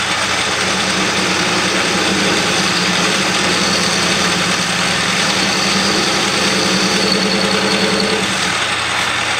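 Metal lathe running while a short boring bar cuts inside the hole of a cast iron cylinder head casting: a steady motor hum with the hiss of the cut. The cut goes smoothly, which is what the switch to a boring bar that sticks out less was meant to achieve; a tone in the sound drops out about eight seconds in.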